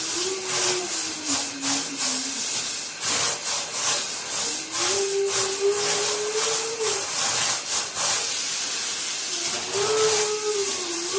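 Shower water spraying steadily, with a person singing a wordless tune over it in three phrases: one fading out about two seconds in, one in the middle, and one starting near the end.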